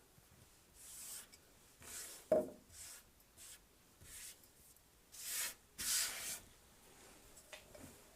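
Soft irregular scraping and rubbing strokes as leftover bits of beeswax are scraped together and dropped into the finish mix, the two longest strokes about five and six seconds in.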